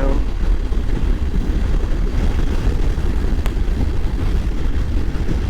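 Moto Guzzi V85 motorcycle under way at road speed: a steady low rumble of wind rush and engine drone on the rider's camera. A single short click about three and a half seconds in.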